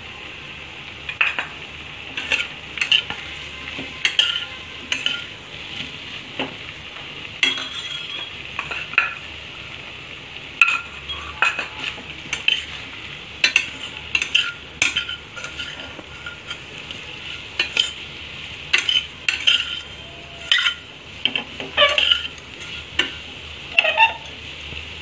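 Steel spoon stirring and scraping potato cubes frying in a stainless-steel pot, with irregular clinks and scrapes against the metal over a steady sizzle.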